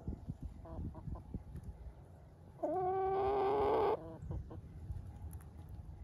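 Backyard chickens clucking softly as they forage. Near the middle, one bird gives a single loud, steady call lasting about a second and a half.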